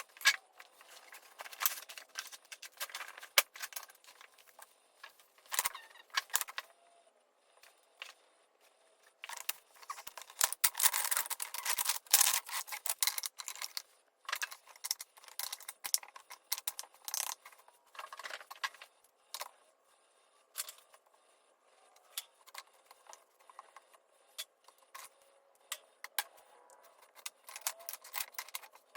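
Small hand-work sounds while painting wood strips: irregular clicks, taps and short scrapes, with a longer stretch of brushing or rubbing in the middle.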